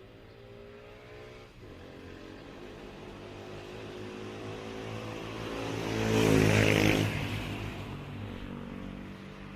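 A bus passing by, its engine and tyre noise growing louder, loudest about six to seven seconds in, then fading.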